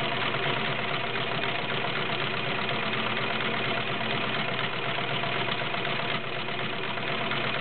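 Kenmore Model 1030 three-quarter-size sewing machine running steadily as it sews through fabric, stopping at the very end. It runs kind of noisy, though its owner finds nothing wrong with it.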